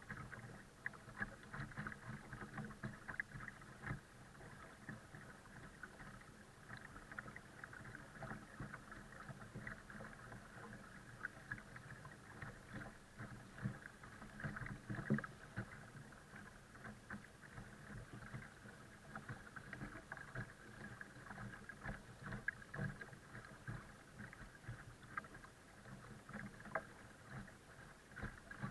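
Water lapping and splashing in small, irregular bursts against the hull of a folding kayak being towed through calm river water.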